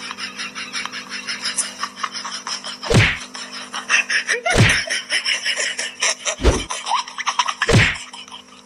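A cat's tail thumping on a wooden floor: four heavy thumps about a second and a half apart.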